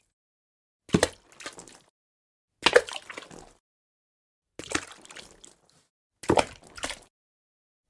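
Water drops falling and splashing, four times about every two seconds, each a sharp drip followed by a few smaller trailing splashes.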